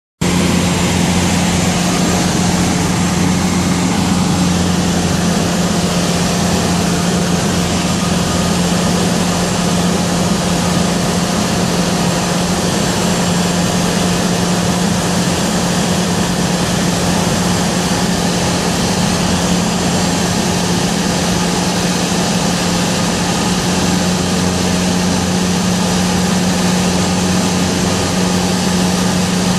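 Light single-engine airplane's piston engine and propeller running steadily in flight, heard from inside the cockpit: a constant low hum under an even rush of noise, with no change in power.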